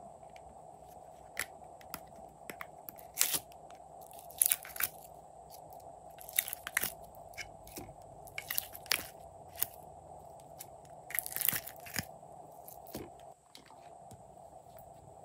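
Thin clear plastic slime pots being handled and their snap-on heart-shaped lids pulled open. The plastic crackles and crinkles in short bursts, every second or two.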